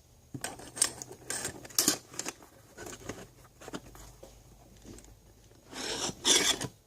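Hand tools being handled and drawn out of the pockets of a fabric tool bag: a series of rubbing, rustling scrapes and light knocks, with a louder scraping rustle near the end.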